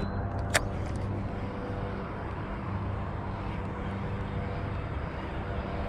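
Steady rumble of road traffic from a nearby freeway, with one short sharp click about half a second in.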